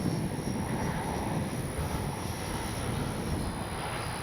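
The 64 mm electric ducted fan of a radio-controlled F-86 Sabre jet in flight: a steady rushing with a faint high whine that shifts slightly in pitch.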